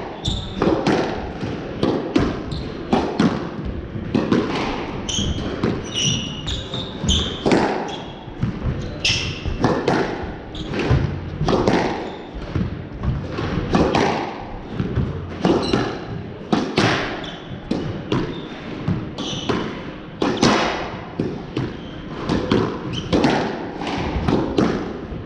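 Squash rally: the ball struck by rackets and hitting the court walls in a steady run of sharp knocks, one every half second to a second. A few seconds in, court shoes squeak briefly on the wooden floor.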